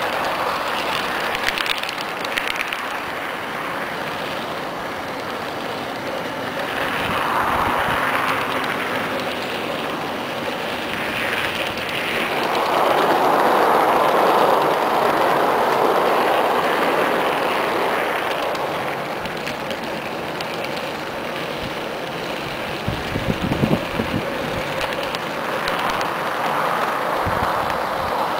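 Garden-railroad train rolling along outdoor track, heard from a microphone riding aboard: a steady whir of wheels on the rails that grows louder for several seconds midway, with a short run of clicks near the end.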